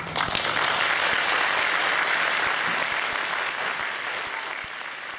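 Audience applauding, starting suddenly at once and slowly fading away.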